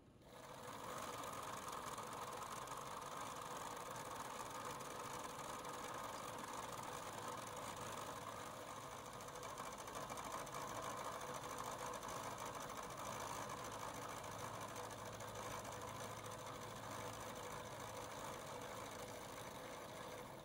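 Bridgeport milling machine running with its end mill cutting an angle into a small steel channel-iron clamp held in the vise. The machining sound holds steady.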